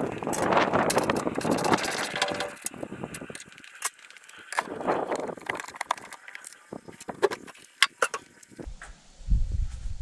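Metal clicks, clanks and rattles as the cab of a John Deere 318D skid steer is unlatched and opened by hand, with rustling handling noise between the knocks. Wind rumbles on the microphone near the end.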